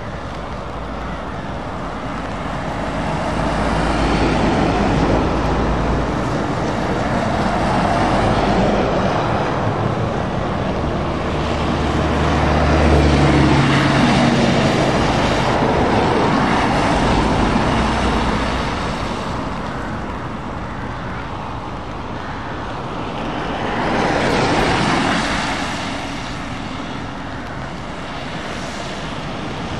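A convoy of lorries and vans passing one after another on a wet road: engines droning and tyres hissing through surface water, the sound swelling and fading as each vehicle goes by, with the strongest low engine note about 12 to 14 seconds in.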